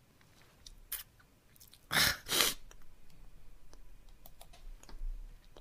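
A person crying sniffs hard, in two quick pulls about two seconds in, with small clicks and mouth noises around it.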